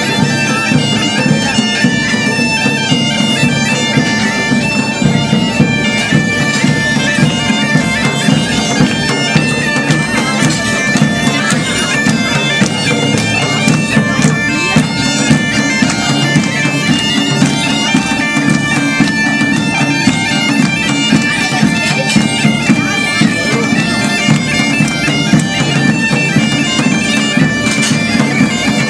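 Medieval-style band playing a lively dance tune on bagpipes over their steady drone, with hand drums beating along.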